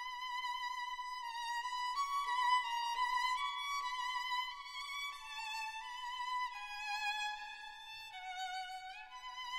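Background music: a solo violin playing a slow melody with vibrato, moving from note to note and sliding up near the end.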